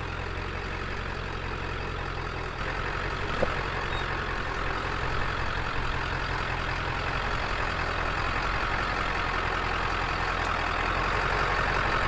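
Diesel engine of a heavily loaded Ford F-350 truck camper running steadily at low speed as it crawls a rocky 4x4 trail, with one short knock about three and a half seconds in and the noise building slightly toward the end.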